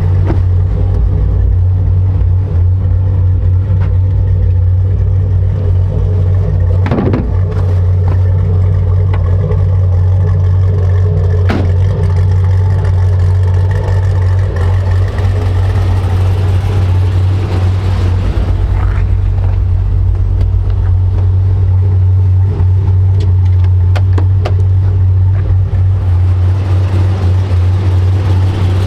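Supercharged V8 of a 2010 Chevrolet Camaro 2SS running at a steady idle, with a constant low engine note and a couple of brief clicks in between.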